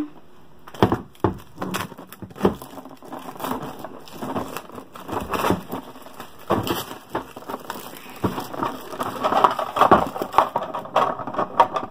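Clear plastic packaging crinkling and crackling as it is torn and pulled off a plastic marker case, in irregular bursts that grow busiest near the end.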